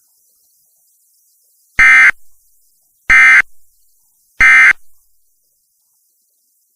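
Emergency Alert System end-of-message signal: three short, loud bursts of SAME digital data tones, about 1.3 s apart, with silence between them. They mark the end of the flash flood warning broadcast.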